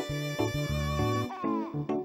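Background music cue: a bass line under plucked notes with a sliding, falling phrase, ending about two seconds in.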